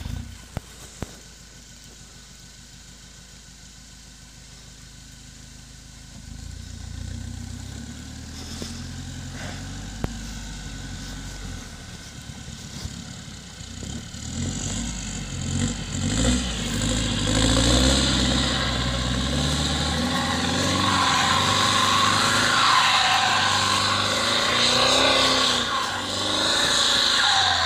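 Land Rover Defender Td4's four-cylinder turbodiesel running quietly, then working harder from about six seconds in as it drives up a snowy track, its revs rising and falling. In the second half it grows loud, with a rushing hiss over the engine.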